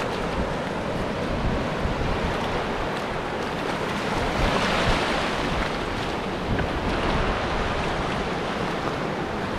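Surf washing in over the beach in the shallows, one wash swelling louder about halfway through, with wind buffeting the microphone as a low rumble.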